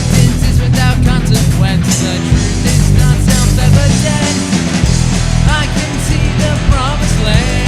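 Rock band playing loudly: drums, bass and electric guitar, with a wavering lead melody over the beat.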